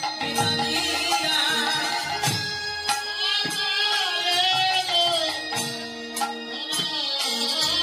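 Live Bengali kirtan music: a wavering melody over held accompanying notes, with percussion strikes about once a second.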